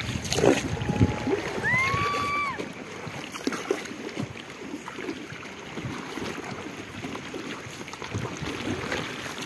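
River water washing and splashing around a round bamboo coracle as its boatman paddles it with a single wooden paddle, with wind on the microphone and a few sharp knocks in the first second. About two seconds in, a high call is held briefly.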